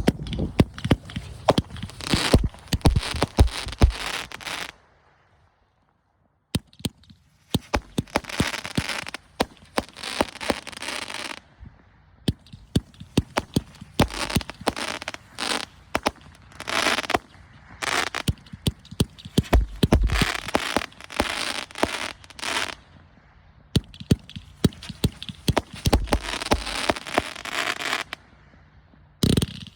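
A 36-shot fanned firework cake firing: a rapid run of sharp shots and bursts, with long stretches of dense crackling from crackling stars. There is a near-silent gap about five seconds in.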